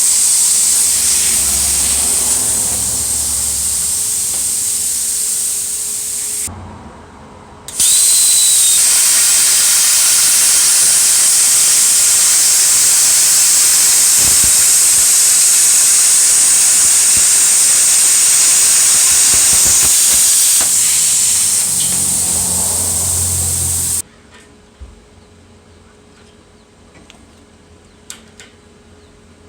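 PrimeWeld Cut 60 plasma cutter hissing loudly while cutting. It stops about six and a half seconds in, restarts a second later with a brief whistle, then cuts off suddenly near the end, leaving a faint hum and a few light clicks.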